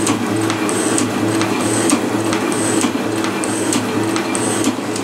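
Flat-belt Mars Hercules lathe running, with a spinning fluted cutter milling a metal block. Short high-pitched squeaks from the cut come and go about twice a second over the steady hum of the drive.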